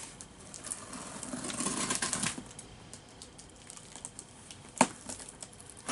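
Scissors slitting the packing tape on a cardboard shipping box and the box being opened: crackling and rustling with small clicks, and one sharp click about five seconds in.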